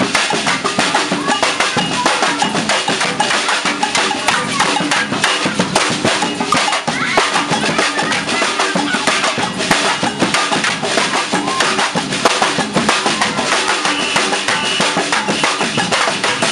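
Samba percussion band playing a dense, driving rhythm: deep surdo bass drums under snare drums and small hand-held tamborims struck with sticks.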